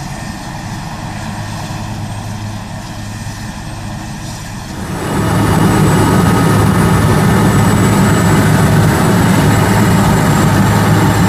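Oryx helicopter in flight: its two Turbomeca Makila IA1 turboshaft engines and rotor running steadily, a low drone with held turbine tones over it. About five seconds in, the sound jumps much louder and stays there.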